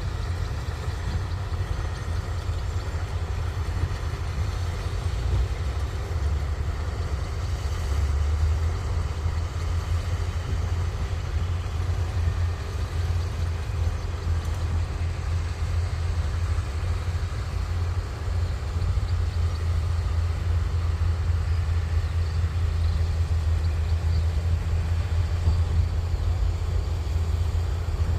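Kubota rice combine harvester's diesel engine running steadily, a constant low drone.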